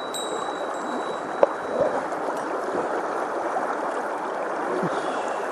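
Mountain stream water rushing and gurgling steadily. A thin, high ringing tone carries on for about the first second and a half and stops near a single click.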